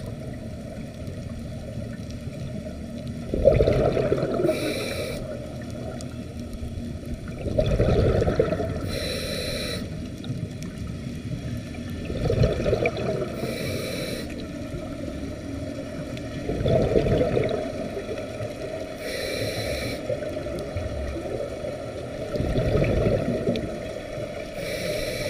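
Scuba diver breathing through a regulator underwater: each breath is a rumbling, gurgling rush of exhaled bubbles, the loudest sound, followed about a second and a half later by the shorter hiss of an inhale. The cycle repeats about every four to five seconds, five times.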